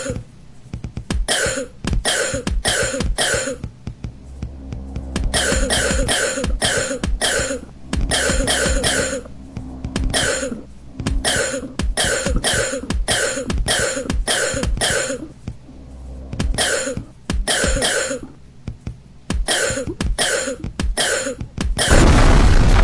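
A baby coughing over and over in short fits of several quick coughs. Near the end, a loud blast sets in.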